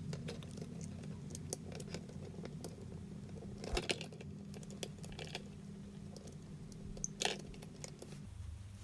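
Faint small clicks and taps of hands handling a FireAngel smoke alarm's plastic casing and circuit board as its speaker lead is plugged back in, with louder clicks about four and seven seconds in. A low steady hum runs underneath and stops shortly before the end.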